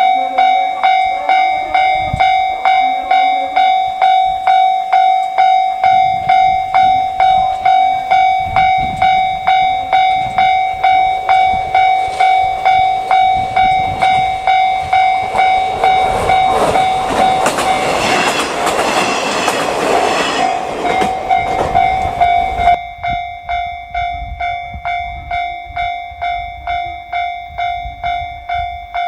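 Japanese level-crossing alarm ringing in a steady ding-ding at about two strokes a second while KiHa 48 diesel railcars pass over the crossing. The train's rumble and wheel clatter build up and are loudest about two-thirds of the way in, then cut off suddenly, and the alarm rings on.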